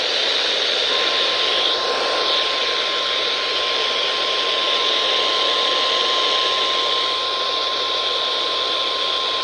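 Emergency Alert System alert tone from a TV broadcast: one steady single-pitched tone held from about a second in, over heavy static hiss from a poorly received signal.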